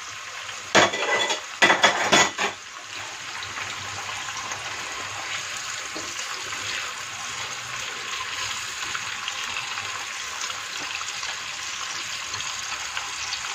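Raw prawns frying in hot oil with garlic in a terracotta cazuela: a steady sizzle with fine crackling as a wooden spoon stirs them. A few sharp knocks in the first two or three seconds.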